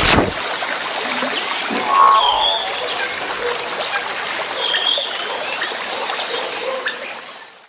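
Sound effect for an animated title card: a sharp hit at the start, then a steady hissing, crackling noise with a couple of short chirps. It fades out at the end.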